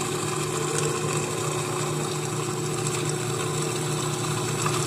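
Food processor motor running at a steady speed, an even hum, whipping eggs as hot butter is dripped in slowly for hollandaise.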